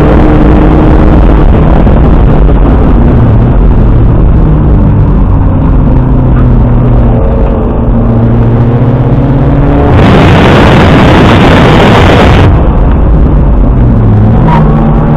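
BMW Z3's engine heard from inside the cabin, loud and distorted, driven hard on track with its pitch rising and falling as the car accelerates and lifts. About ten seconds in, a loud rushing noise swamps it for a couple of seconds.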